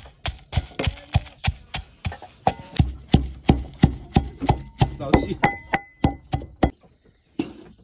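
Wooden pestle pounding garlic, red chilies and green herbs into a paste in a metal bowl, about three strikes a second, breaking off near the end.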